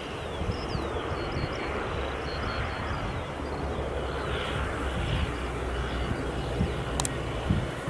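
Airbus A320 jet engines running with a steady rumble as the airliner rolls out along the runway after touchdown.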